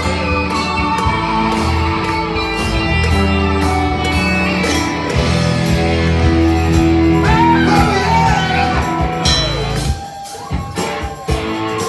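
Live band playing an instrumental passage on electric guitars, keyboard and drums, with held chords over a steady low end and regular drum hits. Around the middle a lead line slides up and down in pitch, and about ten seconds in the low end drops out and the sound thins.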